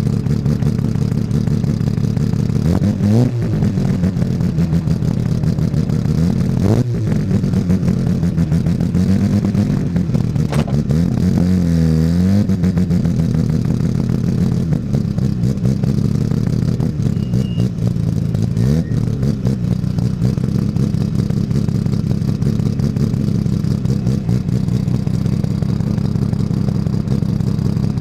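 Mazda RX-7 rotary engine running hard at racing speed, its pitch dipping briefly and climbing back about four times as the car lifts or shifts.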